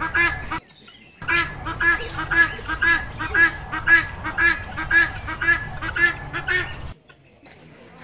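Helmeted guineafowl calling: a fast, even run of harsh, repeated cackling notes, about two to three a second. The calls break off briefly about half a second in and stop about a second before the end.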